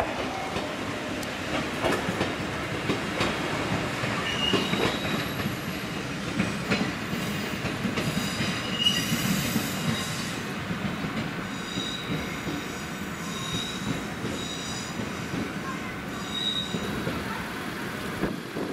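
Ichibata Electric Railway 3000 series electric train rolling slowly over points and rail joints, its wheels clattering, with short high-pitched flange squeals several times.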